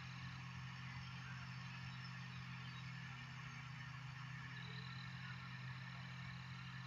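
Distant ultralight aircraft engine running steadily as a low, even drone, under a steady high hiss.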